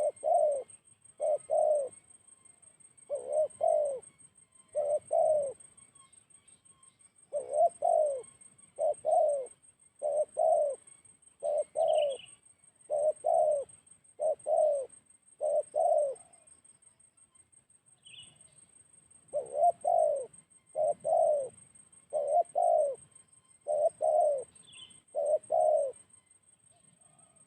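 Spotted dove cooing: short low coos, mostly in pairs, repeated about once a second with a couple of longer pauses. A few brief faint chirps from a smaller bird and a steady faint high-pitched tone sit behind it.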